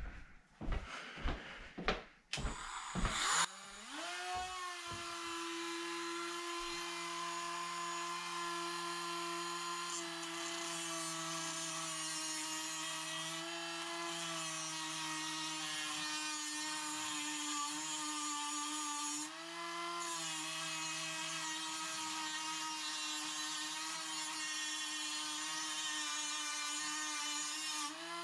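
Knocks and clicks of handling, then about four seconds in a Dremel rotary tool spins up to a steady high whine and keeps running as it cuts into a seized bonnet nut on a shower valve.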